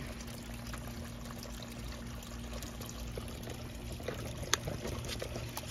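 Water pouring and trickling steadily from a pond filter box outlet into the pond, over a faint steady hum, with a few light clicks in the second half.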